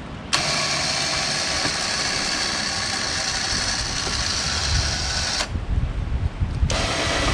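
A motor running steadily with an even, many-toned hum; its higher part cuts out abruptly about five and a half seconds in and comes back about a second later.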